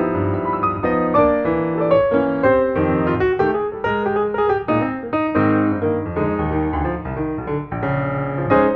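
Background piano music, a continuous run of single notes and chords.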